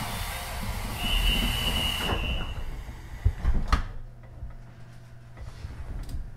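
Pneumatic doors of a JR Central 373 series electric train closing at a station stop. A hiss of air with a short high tone comes first, then a thud about three and a half seconds in as the doors shut, then the standing train's steady low hum.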